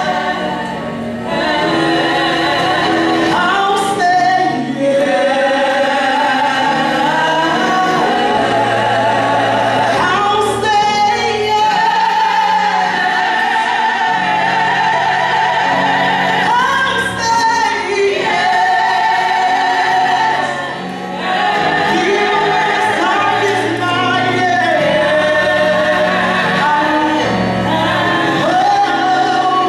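Gospel song sung by a female lead singer with backing singers, amplified through microphones, the lead voice carrying a wavering vibrato over sustained low accompaniment.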